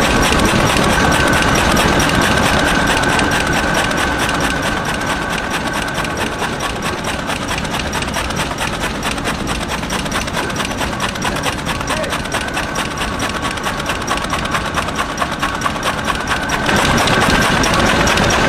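Matchstick splint-making machine running with a fast, even clatter as wooden splints pour out. Near the end it steps up in loudness and a steady whine comes back.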